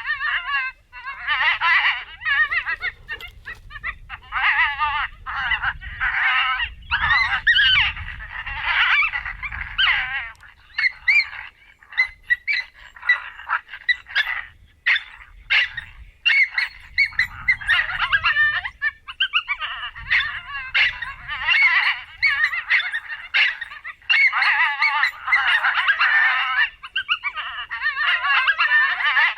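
Coyotes yipping and howling: a chorus of high, wavering yelps and howls, choppier and broken into short yips a little before the middle, then fuller again.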